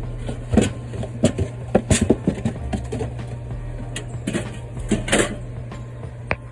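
A run of irregular clicks and knocks, as of objects being handled, over a steady low hum.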